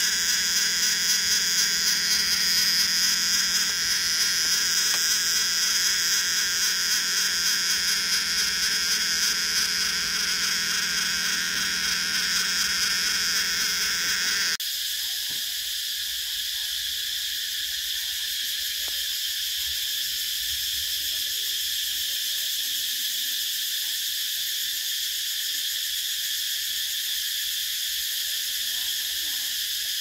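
Cicadas singing in a continuous, shrill, high-pitched drone. About halfway through it changes abruptly to a steadier, thinner cicada chorus with the lower sounds gone.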